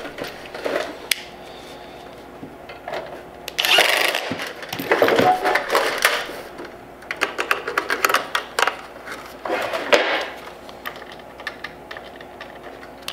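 Bosch cordless drill/driver run in several short bursts, driving the mounting screws of a fluorescent-light ballast into a sheet-aluminium light fixture, with clatter from handling the metal housing.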